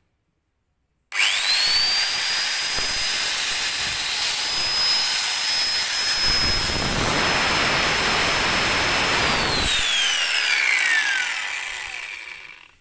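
Maktec MT90 100 mm angle grinder switched on about a second in, its whine climbing quickly to full speed and running free with no load, smooth and without crackling. Near the end it is switched off and winds down in a falling whine.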